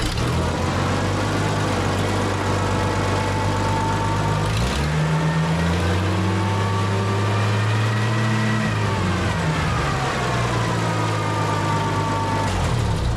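Tractor engine running steadily, then speeding up about five seconds in, holding the higher speed for a few seconds, and dropping back to its earlier speed near the ten-second mark, with a higher whine rising and falling along with it.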